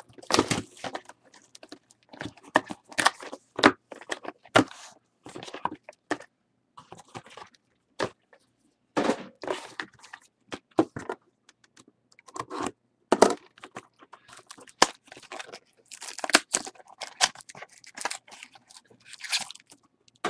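Handling of trading-card packaging: a cardboard hobby box with plastic wrap being opened and its small boxed packs pulled out and set on a table, giving scattered clicks, taps and rustles, with a foil pack crinkling near the end.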